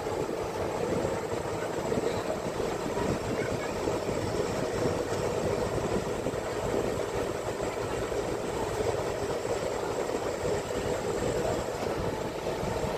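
Steady engine rumble aboard a docked car ferry, with no breaks or sudden sounds, as vehicles idle and start to drive off the deck.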